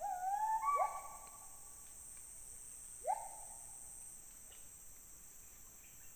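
An unseen animal calling from high in a big tree: short calls that each rise sharply in pitch, a quick run of them in the first second and one more about three seconds in. A steady high insect buzz runs underneath.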